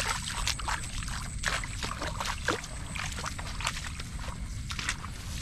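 Footsteps on an overgrown path with grass and weeds brushing and crackling against legs and gear, as a series of irregular light crackles and clicks.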